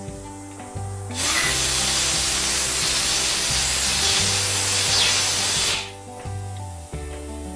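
Compressed air hissing from an air-hose blow gun for about four and a half seconds, starting about a second in and cutting off suddenly, as the head bolt holes in the engine block are blown out before the head goes back on. Background music plays throughout.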